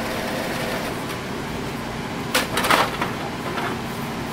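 Plastic paper tray of a Brother MFC-J6925DW inkjet printer being slid out of its drawer: a short scraping rattle with a couple of knocks about two and a half seconds in, over a steady low hum.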